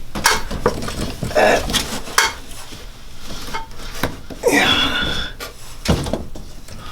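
A hammer knocking a cable staple into a wooden joist by hand: a few sharp metallic knocks with clinking and handling clatter between them.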